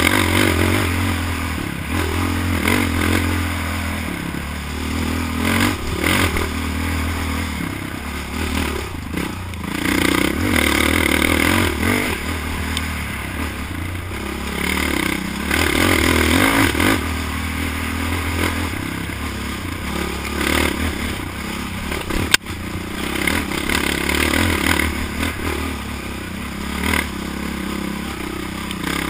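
ATV engine running hard over a rough dirt trail, rising and falling as the throttle is worked, heard from a camera mounted on the quad. Scraping and clattering from the machine over the ground run under it, with one sharp knock about three quarters of the way in.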